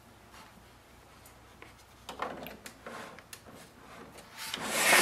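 A power cord's plug scraping and rubbing against the printer's rear panel as it is pushed into the rear power socket. A few light scrapes come about two seconds in, and a louder rubbing builds near the end.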